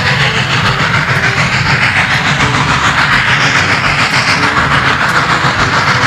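Norfolk and Western J-class steam locomotive running under power: a steady, fast rhythm of exhaust chuffs over a loud hiss of steam.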